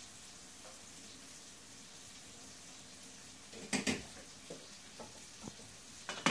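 A metal utensil knocking and scraping against a saucepan of spaghetti as it is checked: a double clatter a little past halfway, a few light taps, then a sharp knock near the end, over a faint steady hiss.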